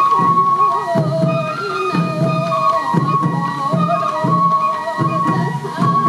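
Traditional sansa odori festival music: bamboo flutes playing a wavering melody over a steady beat of taiko drums, about two strokes a second.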